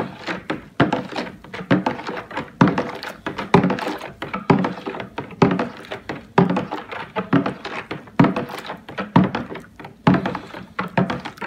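Big spoon stirring OxiClean solution in a plastic cooler, knocking against the cooler's bottom and sides about once a second in a steady rhythm, with water swishing between the knocks. The stirring dissolves the OxiClean powder in the hot water.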